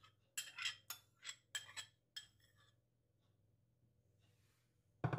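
A spoon clinking and scraping against a bowl, about five short strokes in the first two seconds or so, as yogurt is scooped into a glass mixing bowl; then quiet until a sharp knock near the end.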